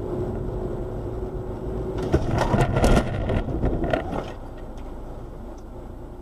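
Car interior running noise picked up by a dashcam, with a steady hum, broken about two seconds in by a second-long cluster of loud knocks and crashes as the car crashes. Another knock comes about four seconds in, then quieter running noise.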